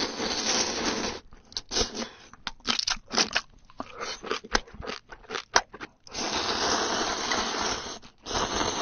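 Close-miked noodle slurping, then a run of short wet chewing and lip-smacking clicks, then another long slurp about six seconds in.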